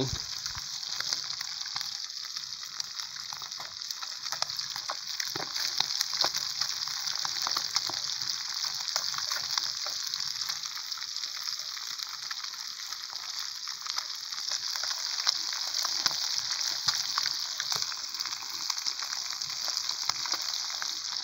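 Pieces of traíra fish deep-frying in a frying pan of hot oil: a steady sizzle with many fine crackles and pops.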